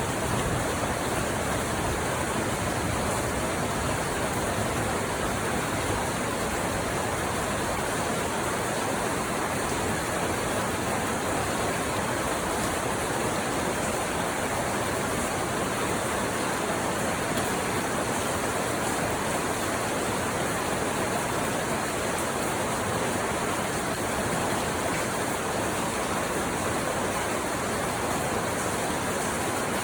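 Steady, heavy rainfall, an even unbroken hiss with no distinct drops or other events.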